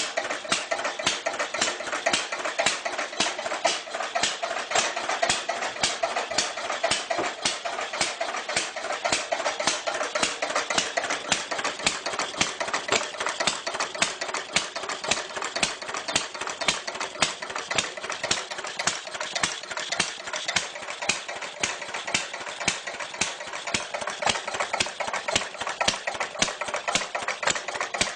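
Clunky old engine running steadily at a slow idle, with a regular clatter of about four knocks a second.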